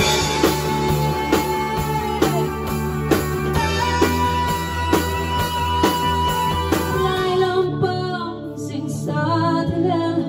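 Small live band: a woman singing long held notes over electric keyboard, bass guitar and a steady beat. About eight seconds in, the beat and bass drop out, leaving the voice over a softer accompaniment.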